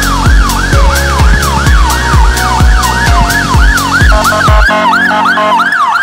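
Fire engine sirens sounding in a rapid rise-and-fall pattern, about two sweeps a second, over a regular low thumping. Near the end the thumping stops, and a second, stepped siren pattern with a steady low tone joins briefly.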